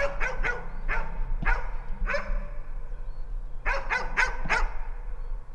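Swedish grey elkhound bay-barking at wild boar: short sharp barks, about five in the first second and a half, then a quick run of five more about three and a half seconds in. This is the hunting dog's stationary bark that holds game at bay.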